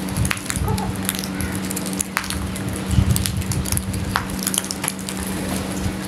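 House crows and chickens pecking grain off a concrete floor: irregular sharp taps and clicks, with a steady low hum underneath.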